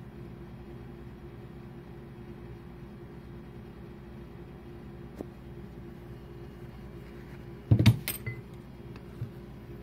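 Steady low workshop hum, then a short burst of clunks and clatter about eight seconds in as the camera and parts are handled and moved over the cylinder head, followed by a few light ticks.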